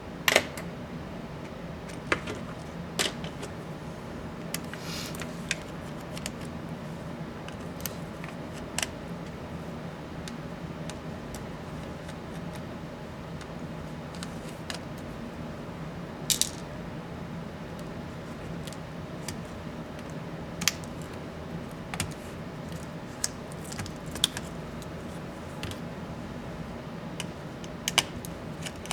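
Scattered sharp clicks and light metallic taps of small tools and screws being handled on a Dell Inspiron 15 7586 2-in-1 laptop during disassembly. About a dozen come at irregular intervals over a steady low hum.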